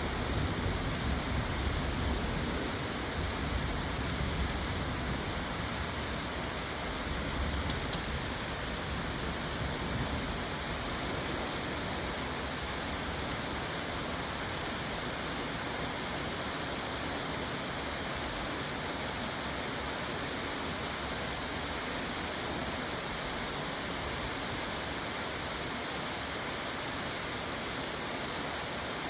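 Steady rain falling, an even hiss, a little louder and heavier in the low end during the first ten seconds or so.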